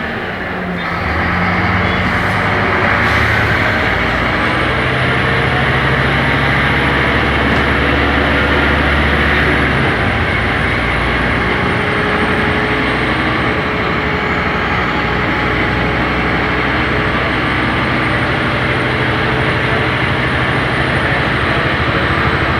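Scania K270IB bus with ZF automatic gearbox running under way. The engine runs steadily with a thin high whine above it that rises and falls in pitch, and the engine note changes about ten seconds in.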